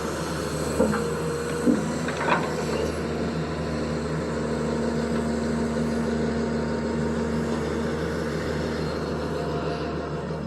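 Zoomlion excavator's diesel engine running steadily, with a steady whine over the engine note. Three sharp knocks in the first few seconds.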